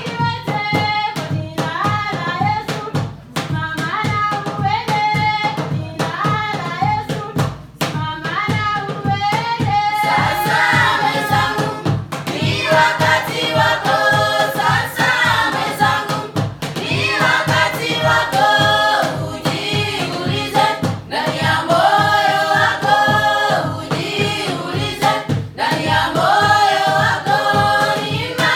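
A group of voices singing in harmony, choir-like, over a steady beat of hand claps.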